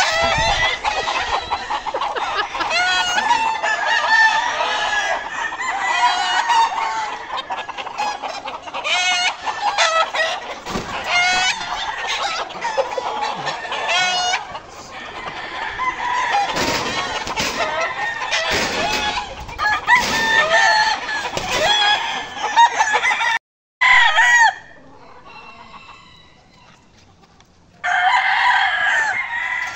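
Many gamecocks crowing and clucking over one another. The sound cuts out suddenly about two-thirds through, stays quieter for a few seconds, then the crowing picks up again near the end.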